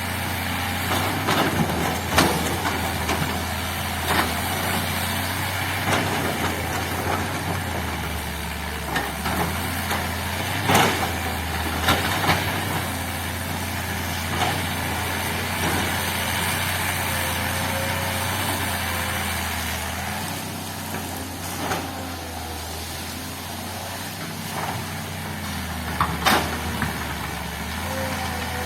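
Diesel engine of a heavy earthmoving machine running steadily, with a sharp knock now and then, the clearest about eleven seconds in and again near the end.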